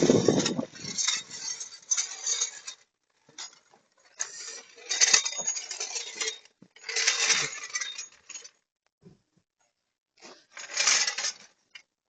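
Metal tire-change tools and parts clinking and rattling in four separate bursts of handling, each lasting one to two seconds.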